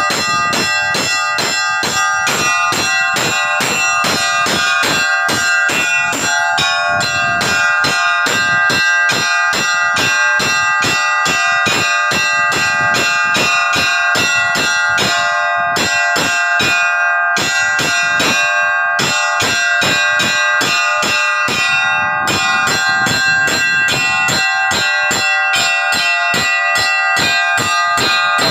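Russian Orthodox church bells rung by hand: rapid, steady strikes, about four a second, over the lingering ring of several bells. The peal calls the faithful to a service.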